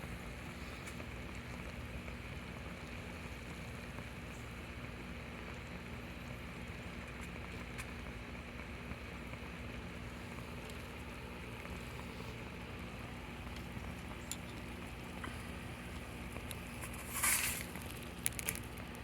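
Water at a full rolling boil in a small titanium pot over an alcohol stove, a steady bubbling hiss. Near the end there is a short louder rustle, then a few sharp clicks.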